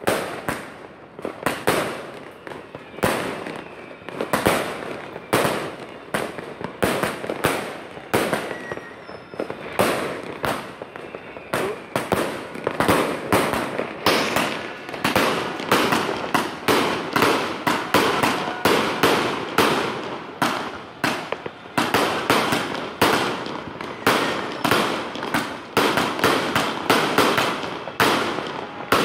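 A 228-shot aerial fireworks cake firing shot after shot, each a sharp launch and burst. The shots come about two a second at first and quicken from about halfway through.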